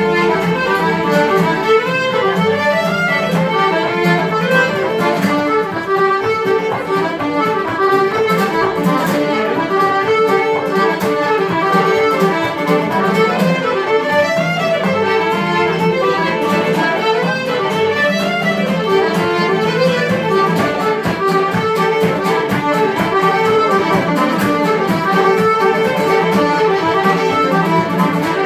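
Live Irish traditional session music: fiddles and a button accordion play a lively tune together in unison over guitar accompaniment, without a break.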